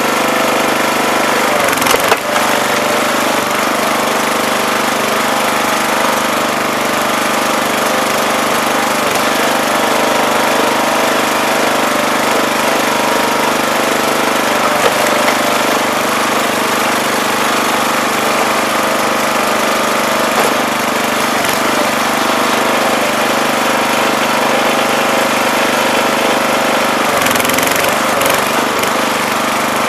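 Wood splitter's small 5 hp gas engine running steadily, driving the hydraulic pump, with a sharp knock about two seconds in and a few more near the end.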